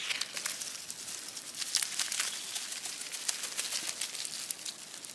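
Dry grass and twigs crackling and rustling as a mesh yabby net of freshly caught yabbies is tipped out onto the ground and the yabbies scrabble about in it. A dense, irregular run of small clicks and crinkles.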